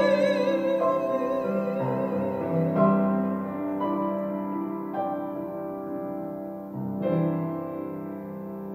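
A woman's held sung note with wide vibrato ends about a second in, and a grand piano plays on alone: slow chords struck every second or two, each ringing and fading, getting quieter toward the end.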